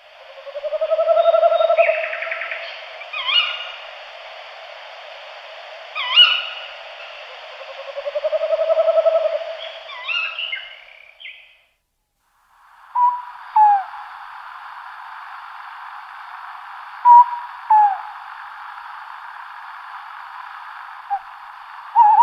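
Owl hooting: two long, wavering hoots in the first half, then, after a brief break, a run of short sharp calls, over a steady hiss.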